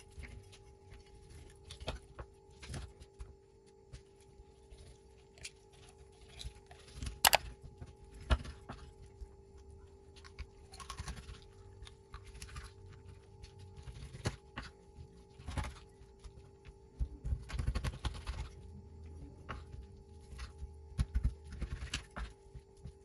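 Knife cutting raw chicken into pieces on a wooden cutting board: irregular knocks of the blade against the board with some scraping, the loudest knock about seven seconds in.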